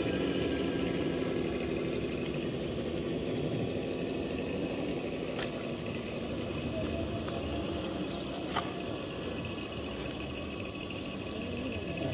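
Electric motor and gears of an RC scale rock crawler whirring steadily as it creeps over rocks, with two sharp clicks, one about halfway through and another a few seconds later.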